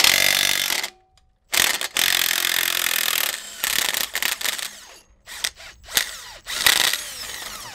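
Compact cordless impact wrench hammering on the nut of a homemade threaded-rod bushing press on a Dodge Ram axle, in runs: it stops for about half a second about a second in, runs again for nearly two seconds, then goes in shorter bursts.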